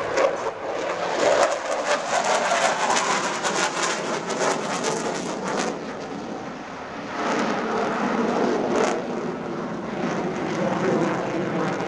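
Dassault Rafale fighter's twin jet engines heard from the ground as it flies its display overhead: a steady jet noise that dips about six seconds in and swells again a second later.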